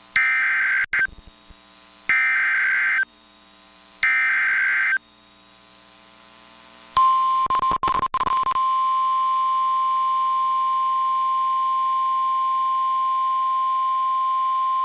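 Emergency Alert System severe thunderstorm warning signal: three harsh one-second bursts of SAME header data about two seconds apart. After a pause there is a single long, steady alert tone, crackling briefly as it starts.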